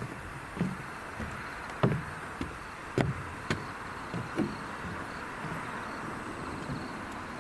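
Footsteps on the wooden planks of a small railway platform, a dull thud about every half second, slowing and stopping about four and a half seconds in. A steady hiss runs underneath.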